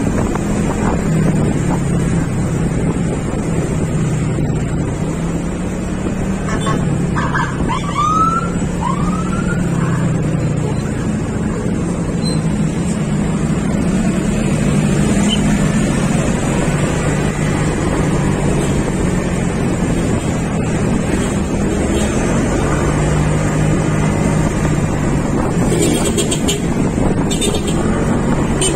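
Motorcycle engine running while riding, its note rising and falling a little with speed. A few short high chirps sound about seven to nine seconds in.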